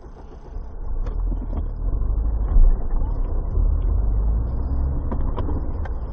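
Mercedes-Benz car driving on a snowy road, heard from inside the cabin: a low engine and tyre rumble that grows louder about a second in and then holds steady. There is one brief louder thump about two and a half seconds in.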